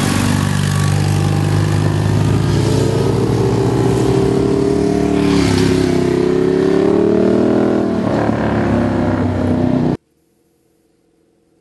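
BMW boxer-twin motorcycle with a sidecar passing close by, its engine note rising as it accelerates out of a bend. The sound cuts off suddenly about ten seconds in.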